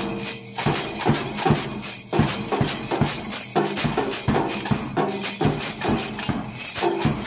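Small percussion band playing a steady marching beat: bass drum thuds, snare drum strokes and a pair of metal maracas shaking, about two to three strikes a second.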